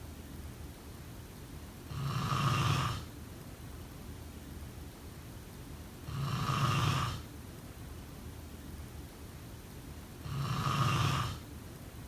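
A sleeping person snoring: three snores about four seconds apart, each lasting about a second.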